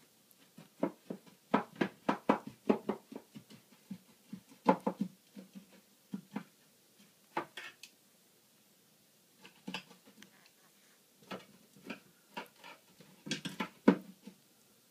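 Irregular clusters of short, light clicks and knocks as a corn snake swallowing a mouse shifts its body and prey against the sides of a plastic feeding tub.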